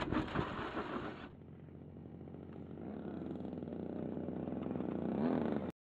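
Wind rushing over the microphone for about a second, then a model airplane's motor droning steadily and growing louder until it cuts off abruptly near the end.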